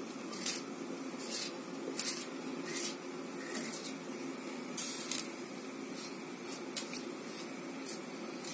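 A kitchen knife slicing a raw potato into cubes held over a bowl: short crisp cuts, irregularly about one every half second to a second, with cut pieces dropping into the bowl.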